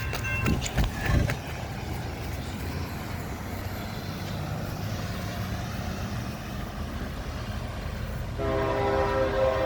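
Approaching train's low rumble under the hiss of heavy rain, with a few sharp knocks in the first second or so. A locomotive air horn blows a loud, many-toned chord starting about eight seconds in and holding, sounding for the crossing.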